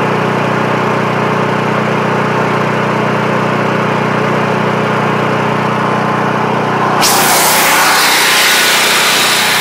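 Small engine of a Chinese portable generator running steadily at about 3,600 rpm, a little below the 3,750 rpm it should be set to. About seven seconds in, the sound turns brighter and hissier.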